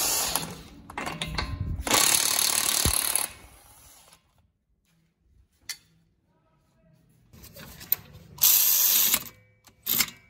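Cordless power tools run in several short spurts with a quiet spell in the middle: a DeWalt XR cordless impact at the wheel hub early on, then a cordless ratchet spinning a bolt under the car near the end.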